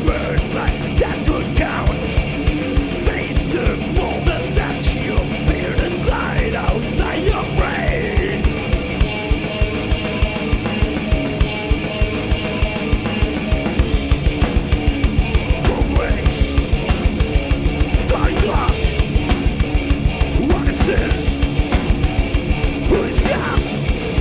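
Thrash metal band playing live: distorted electric guitars, bass and drums driving a fast, regular beat.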